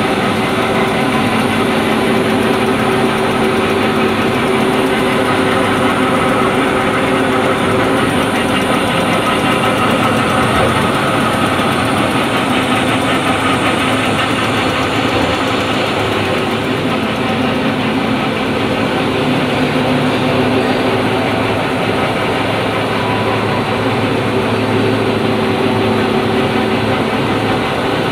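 Roll-fed paper cup printing machine running at speed: a steady, even mechanical noise of its rollers and drives, with a few constant hum tones under it.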